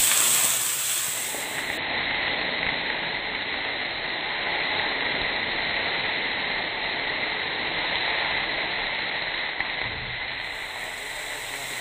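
Pork pieces sizzling hard in a very hot, oiled frying pan, a steady loud hiss, while the pan is tossed and the oil flares up into flames.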